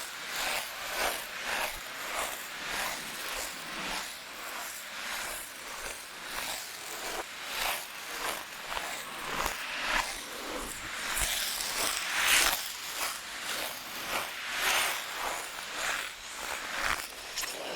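Ice skate blades scraping across ice in a steady run of strides, about two scrapes a second, with a longer, louder scrape about twelve seconds in.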